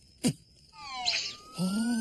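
Cartoon sound effects of a fall down a cactus: a quick downward zip, then a few falling whistle-like glides. After that comes a long, held, whining cry of pain from the cartoon character, with a thin rising tone over it.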